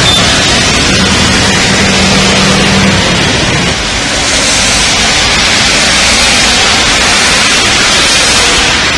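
Heavy rain pouring onto a waterlogged road, a loud, even hiss. A steady low hum runs under it for the first three or four seconds, then stops.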